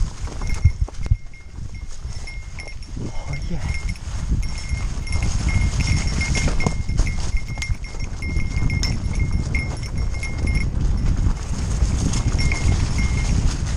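Fat bike rolling over a forest trail: a steady low rumble of tyres and wind, with a small metal bell jingling in quick irregular strings. The bell pauses briefly about three-quarters of the way through.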